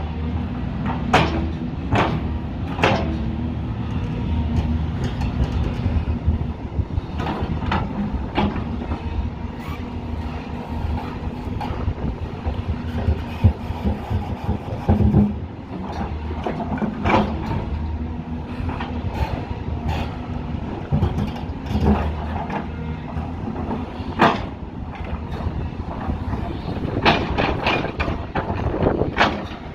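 Heavy construction machine's diesel engine running steadily under load, with frequent sharp knocks and clanks from the working machine at irregular intervals.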